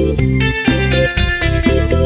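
Background music led by plucked guitar over a steady beat.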